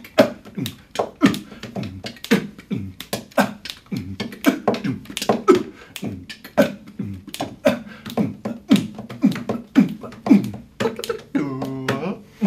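Vocal beatboxing: a fast, steady beat of mouth-made kick-drum thumps and snare clicks, ending in a short held low hummed note.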